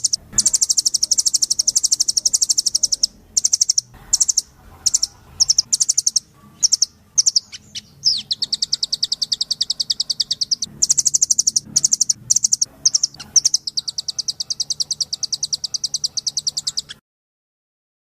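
A songbird singing rapid, high-pitched chattering trills of very fast repeated notes, in several runs broken by short pauses, with the song cutting off abruptly about a second before the end.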